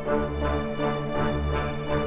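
Background music: held keyboard chords over a bass note pulsing a little more than once a second.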